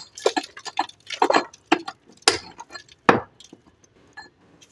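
Hammer blows on a chisel chipping concrete and plaster off a pillar: irregular, sharp metallic strikes, the loudest two about two and three seconds in.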